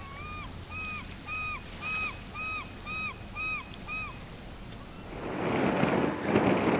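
A bird calling eight times in quick succession, short clear pitched calls about two a second. From about five seconds in, wind rushes over the microphone.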